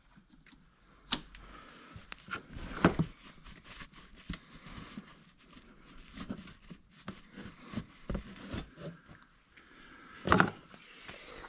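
Hand tools clinking and knocking as they are put away, with several louder knocks, the loudest about ten seconds in.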